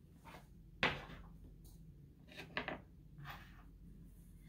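A few light knocks of small flowerpots being set down on a hard tabletop: one sharp knock about a second in, then two quick smaller taps a little later.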